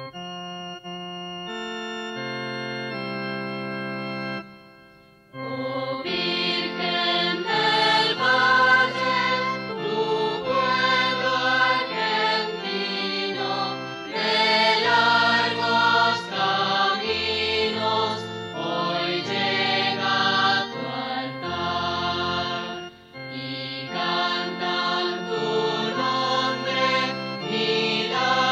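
Recorded hymn music. It opens with steady held chords, then after a brief drop a fuller passage of many changing notes begins about five seconds in.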